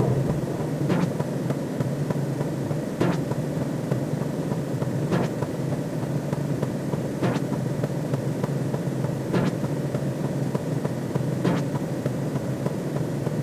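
Steady low sci-fi drone sound effect, with a faint click about every two seconds.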